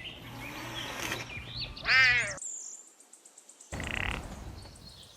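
Serval calling: a loud, arching cry about two seconds in that cuts off abruptly, then a short harsh burst a little after the middle.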